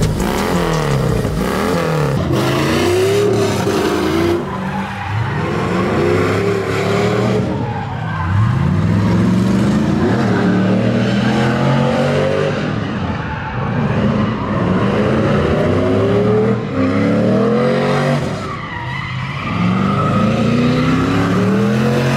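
Car engine revving up and down again and again, its pitch rising and falling every couple of seconds, with tyres squealing as a drift car slides.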